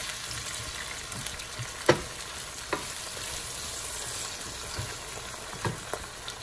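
Sliced onions, peppers and tomato sizzling in oil in a nonstick sauté pan on high heat while a wooden spoon stirs them. The spoon knocks sharply against the pan a few times, loudest about two seconds in.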